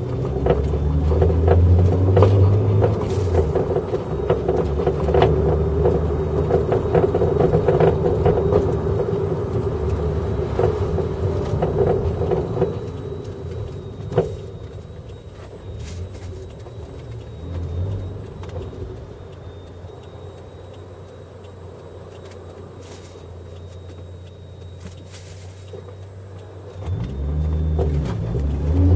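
Inside the cabin of a Toyota JZX100 on the move, heard from the rear: engine and road noise with scattered sharp knocks and clicks from the rear suspension. The owner traced the noise to a failed pillow-ball upper mount on the Öhlins PCV coilover. The car settles to a quieter low hum about halfway through, then the engine revs up again near the end as it accelerates.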